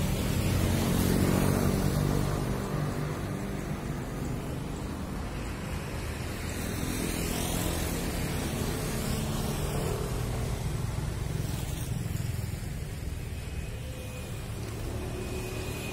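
Motor vehicle engines running close by: a steady engine hum, loudest in the first couple of seconds, with vehicles passing.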